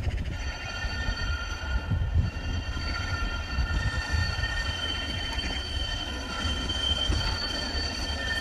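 Siemens Avanto tram-train running on rail, its wheels squealing with several steady high tones over a continuous low rumble.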